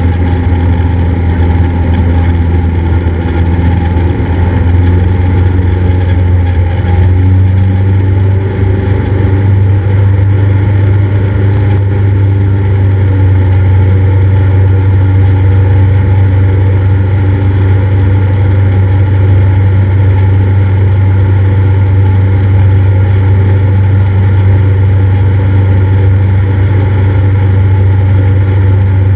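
Cessna 172's piston engine and propeller droning steadily in the cabin. The drone grows a little louder and shifts slightly in pitch about seven seconds in, as if power is changed.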